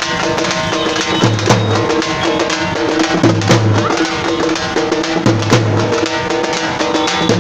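Teenmaar drumming by a troupe of large double-headed drums beaten with sticks: fast, dense strokes with a heavy low beat pattern recurring about every two seconds.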